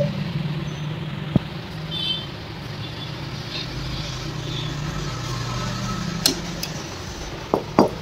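A steady low rumble with a few sharp metallic clicks of engine parts or tools being handled, two of them close together near the end.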